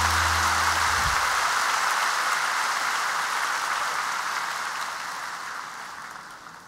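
The band's last held low chord ends about a second in. A large concert audience applauds, and the applause fades away gradually.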